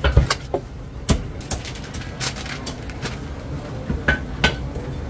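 Chinese cleaver striking a thick round wooden chopping block as roast pigeons are chopped: irregular sharp knocks, one or two a second.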